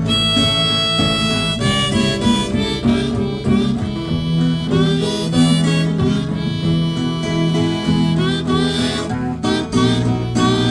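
Country blues played on harmonica, with some bent notes, over a steadily strummed guitar.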